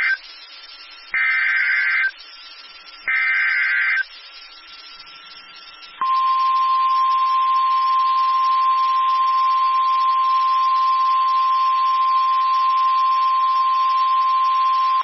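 NOAA Weather Radio Emergency Alert System signal announcing a severe thunderstorm warning. The end of one buzzing SAME digital header burst is followed by two more one-second bursts. After a two-second pause comes the steady single-pitch 1050 Hz warning alarm tone, held for about nine seconds.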